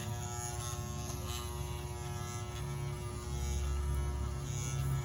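Electric hair clippers running with a steady buzz, which grows a little louder and deeper about three seconds in.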